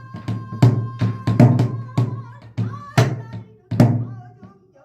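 Pansori barrel drum (buk) played in the fast jajinmori rhythm under a pansori singer's voice: sharp strokes with a deep low thud, spaced unevenly about half a second to a second apart, while the singer holds a long note early on.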